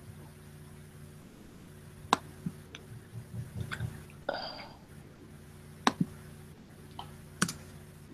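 Quiet room tone on a webcam microphone with a steady low hum, broken by three sharp clicks, the first about two seconds in and the other two near the end. A short hiss and some faint low mumbling come in the middle.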